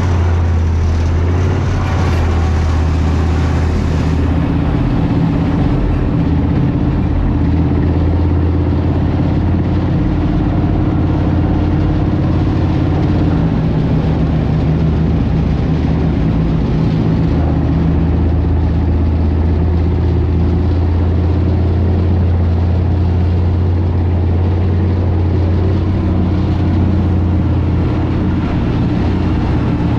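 Leopard 1A5 main battle tank under way, its 10-cylinder MTU multi-fuel diesel running steadily with a loud low drone. The engine note shifts about halfway through.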